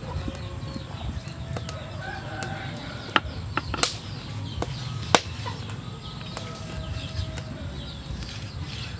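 A knife cutting a lime on a wooden chopping block, with a few sharp knocks of the blade on the wood about 3, 4 and 5 seconds in. Chickens cluck in the background.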